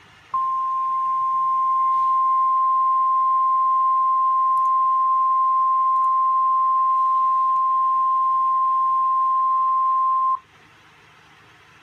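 NOAA Weather Radio 1050 Hz warning alarm tone: one steady, unbroken beep that starts just after the beginning, holds for about ten seconds and cuts off sharply. It signals that a warning broadcast, here a severe thunderstorm warning, is about to be read.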